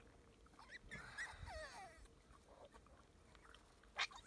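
Puppies whimpering: a few thin, high whining cries that waver and fall in pitch about a second in, then two short sharp cries near the end.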